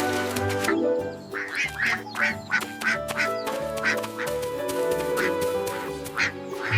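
Background music with a run of short duck quacks over it, about six in quick succession starting a second in, then two more spaced out.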